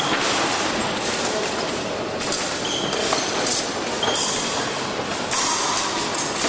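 Steady background noise of a fencing hall during épée bouts, dense and continuous, with scattered short clicks and knocks and two brief high beeps, one about two and a half seconds in and one about four seconds in.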